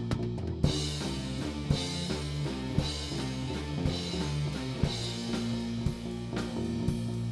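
Rock music with drum kit and guitar, a heavy drum hit landing about once a second.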